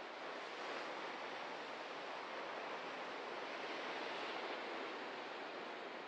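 Ocean surf washing onto the shore: a steady rushing noise that swells slightly about half a second in and eases near the end.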